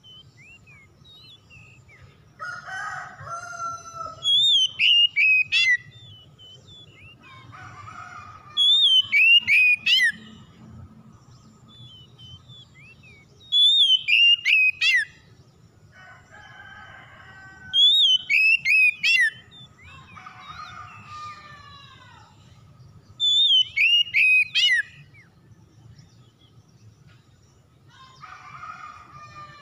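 Oriental magpie-robin singing: loud, high whistled phrases of quick rising and falling notes, repeated about every four to five seconds, with lower, rougher phrases in between.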